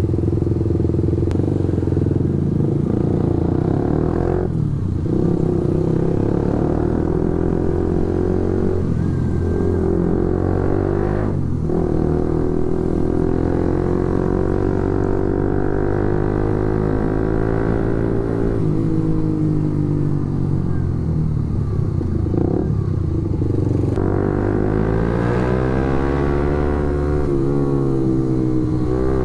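Suzuki GSX-S150's single-cylinder 150 cc engine running through an aftermarket SARP exhaust while the bike is ridden: the engine note climbs and falls as the throttle is opened and closed, with several short breaks in the note, about 5, 11 and 22 seconds in.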